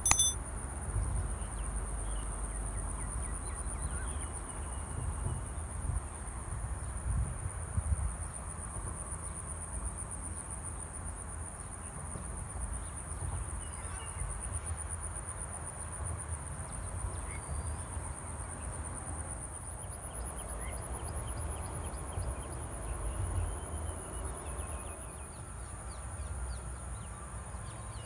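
Insects, crickets or cicadas, keeping up a steady, high-pitched drone that shifts slightly higher about two-thirds of the way through. A low rumble runs underneath, strongest in the first third, with a few faint bird chirps and a brief click at the very start.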